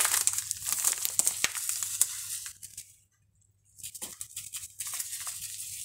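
Sugar and coconut-flake topping shaken from a container onto rolled-out dough: a dry, crackly rattle of falling grains, in two spells with a short silence about three seconds in.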